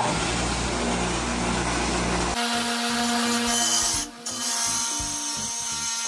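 Small wet tile saw running as it cuts a thin brick to length. About two and a half seconds in, its low rumble drops away abruptly and a steadier hum with a higher tone carries on.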